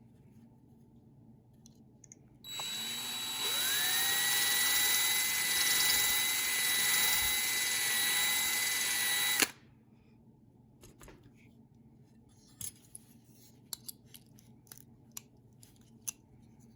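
Power drill spinning up with a rising whine and running steadily for about seven seconds as it drills out the rivet holding a die-cast toy fire engine's windshield, then stopping suddenly. Faint small clicks and taps follow.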